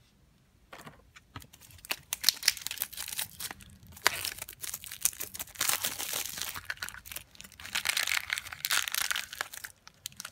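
Plastic wrapping crinkling and tearing as it is pulled off a toy pumpkin capsule, with a thin foil bag crumpled in the hands, starting about two seconds in after a few light clicks.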